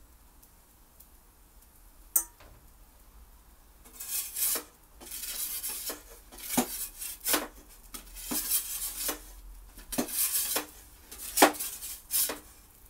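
Metal pizza turning peel scraping across the baking stone of an Ooni Koda oven and clinking against its metal mouth as the pizza is lifted and turned. There is a single click about two seconds in, then from about four seconds on a run of scrapes and sharp clinks.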